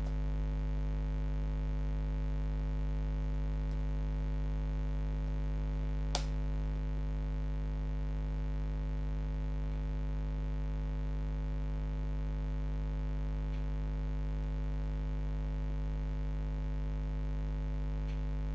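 Steady electrical mains hum with a buzzy edge, holding an even level throughout. A single sharp click comes about six seconds in, with a few much fainter ticks elsewhere.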